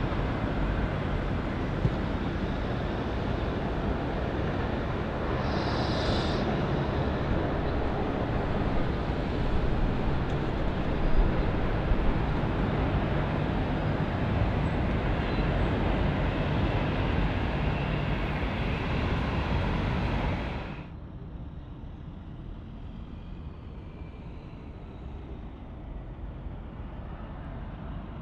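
Airbus A320-200 airliner landing: steady, loud jet and rushing air noise through touchdown and the roll-out along the runway. About three-quarters of the way through it cuts off abruptly to a much quieter, steady distant jet sound of an airliner on final approach.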